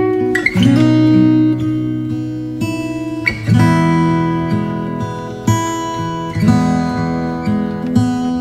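Background music: acoustic guitar chords, each struck and left to ring, a new chord every second or two.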